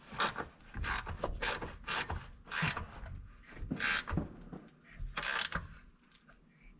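Hand ratchet wrench clicking in a series of short strokes, about two a second with brief pauses, as a bracket bolt on a tractor engine is tightened down.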